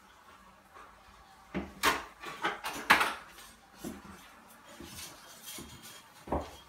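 A run of sharp clattering knocks and clicks, densest and loudest about two to three seconds in, then a few softer knocks and a dull thump near the end.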